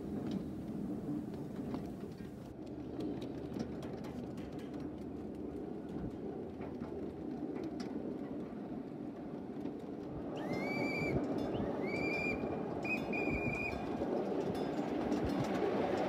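A 1/8-scale ride-on miniature train rolling along its track, a steady rumble with scattered clicks from the wheels on the rails. About ten seconds in, three short high-pitched toots sound a second or so apart, the train's horn blown for a grade crossing.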